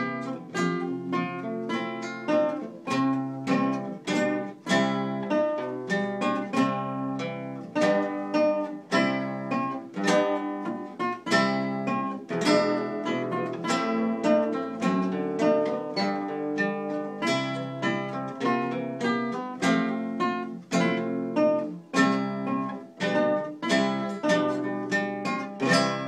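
Classical nylon-string guitar played solo and fingerpicked: a steady run of plucked melody notes over repeated bass notes.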